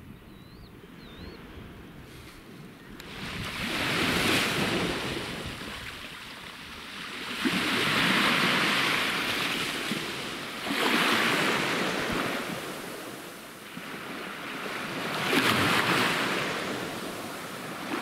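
Small sea waves washing onto a sandy beach, swelling and falling back four times a few seconds apart, after a quieter start with wind on the microphone.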